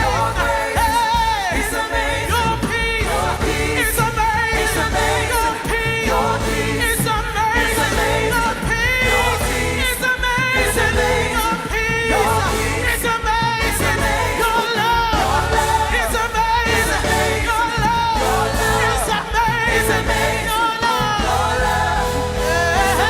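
Live gospel worship music: singers with a band carrying a steady bass and beat.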